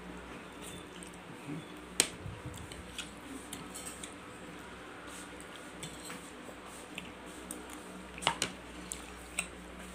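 Metal knife and fork clinking and scraping on a plate while cutting food, with a sharp clink about two seconds in and a few more just past eight seconds.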